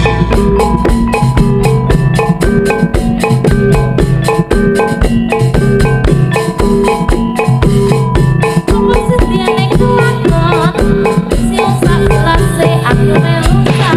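Loud jaranan accompaniment music played through a PA sound system: gamelan-style metal mallet instruments ringing a fast, steady pattern over drums and a heavy bass, with a wavering melody line joining in about nine seconds in.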